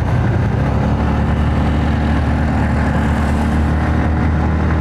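Yamaha Xabre motorcycle's single-cylinder engine running at a steady pace while riding, with wind noise over the microphone.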